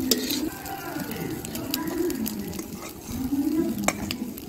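A dove cooing over and over, the same low phrase every second or so, with a few sharp clicks of a metal spatula against an iron kadhai.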